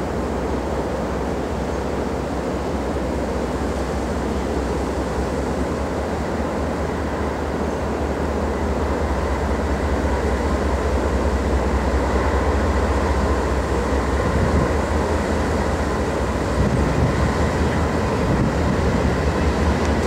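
Approaching freight train led by GE CW40-9 diesel locomotives, their engines rumbling and growing louder from about halfway through, over wind noise on the microphone.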